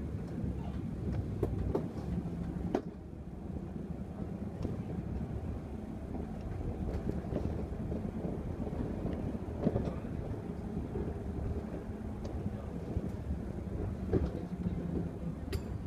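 Inside a Mercedes-Benz city bus under way: the steady low rumble of the engine and road, with scattered sharp clicks and rattles from the cabin.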